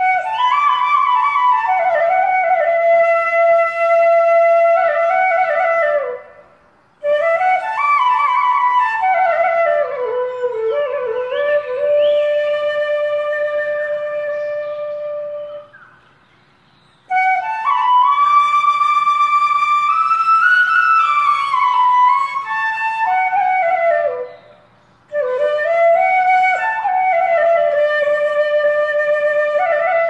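Background flute music: a slow melody in long phrases with held notes, each phrase sinking at its end and separated from the next by a brief pause.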